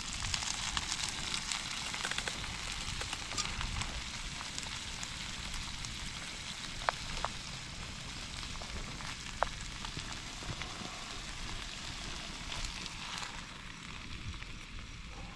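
Food sizzling in hot oil in a pan: a steady frying hiss with scattered crackles and two short sharp ticks near the middle.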